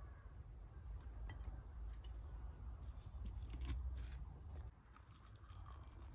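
Faint crunching and tearing of crisp fried food being broken apart and chewed, with a few light clicks, over a low steady rumble.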